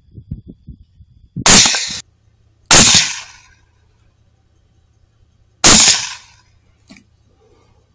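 Three rifle shots from a Savage MSR10 semi-automatic rifle in 6.5 Creedmoor: one about one and a half seconds in, a second just over a second later, and a third about three seconds after that, each a sharp crack with a short echoing tail. A small click follows about a second after the last shot.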